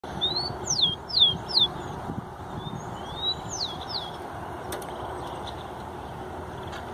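Rufous-collared sparrow (tico-tico) singing two song phrases, each a short rising whistle followed by clear whistles sliding steeply downward: three in the first phrase, two in the second. A steady background rush runs beneath.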